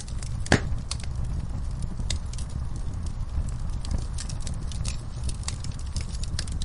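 Wood fire burning in a fireplace, crackling and popping at irregular intervals over a steady low rumble of the flames, with one sharp pop about half a second in.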